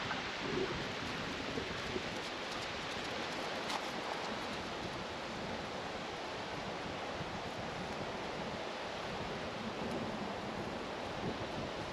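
Steady wash of surf and wind, an even hiss with no clear breaks.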